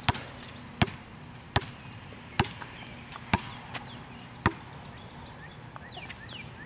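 Basketball being dribbled on a paved driveway: about six single sharp bounces, roughly one every 0.8 s, stopping about four and a half seconds in. Near the end a bird chirps in a quick run of short falling notes.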